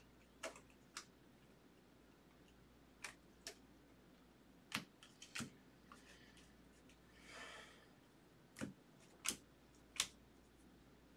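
Baseball trading cards being flipped through by hand. About ten short, sharp clicks come at uneven intervals as cards slide off and tap against the stack, with a brief rustle about seven seconds in.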